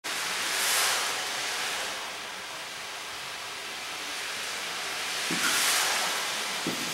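A percussion ensemble making a soft, steady hiss of sound that swells about a second in and again near the end, with two soft low knocks late on.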